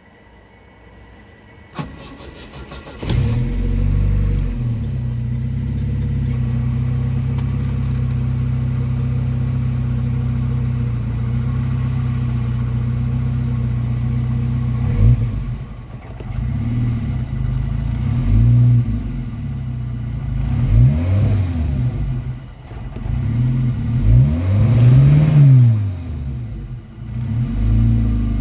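Turbocharged car engine cranked and started about three seconds in, then idling steadily. From about halfway it is revved in a series of blips, each rising and falling in pitch, the longest near the end.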